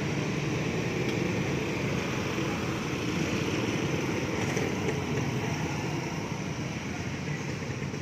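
Steady road and engine noise of a moving vehicle, running evenly without change.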